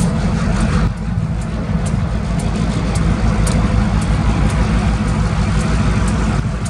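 Union Pacific diesel locomotives running steadily as they move slowly past pulling hopper cars, a deep engine drone with scattered light clicks.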